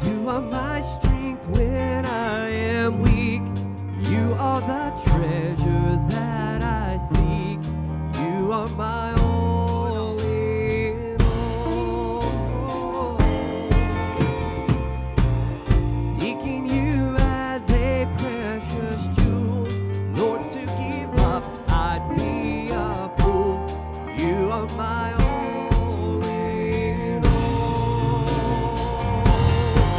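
Live church worship band playing gospel-style music: a steady drum-kit beat under a sustained melody line that wavers with vibrato.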